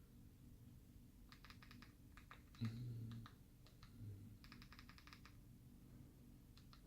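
Faint typing: quick runs of key clicks as a web address is entered, with a soft low thump about two and a half seconds in, over a steady low hum.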